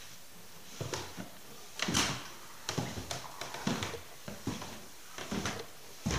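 Footsteps on a bare hard floor in an empty room, about one step a second, each a short knock, often in close pairs.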